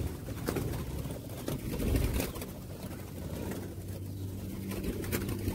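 Spotted doves cooing in an aviary, with scattered clicks and knocks throughout.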